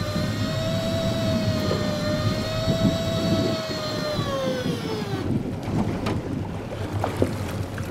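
Shimano Beastmaster 9000 electric fishing reel motor whining steadily as it winds a hooked hapuku up to the boat; its pitch sags from about four seconds in and it stops about a second later. Low rumble of the boat and wind underneath.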